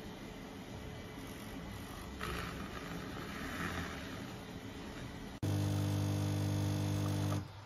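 Handheld milk frother whirring steadily in a glass of milk. About five seconds in, an espresso machine's pump starts with a loud steady buzz as the espresso pours, and it cuts off abruptly about two seconds later.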